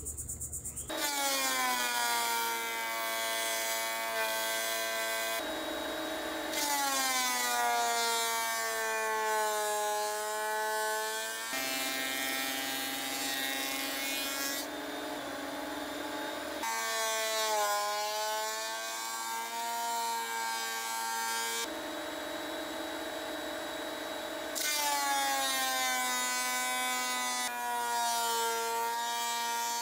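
Delta benchtop thickness planer running and planing wood strips; the motor's pitch drops each time a strip feeds into the cutterhead and recovers as it comes out, four times over.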